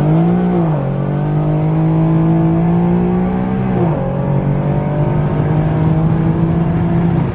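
Infiniti Q50S engine pulling hard under full throttle in a rolling acceleration run, with a drop in engine note about a second in and again just before four seconds, as the transmission shifts up.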